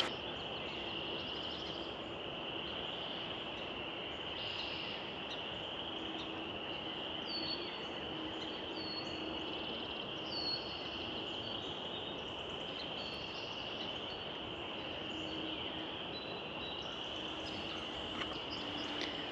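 Frogs calling in a dense spring chorus, a steady high trill. Several short, falling bird calls sound over it from about seven to eleven seconds in, part of the dawn chorus.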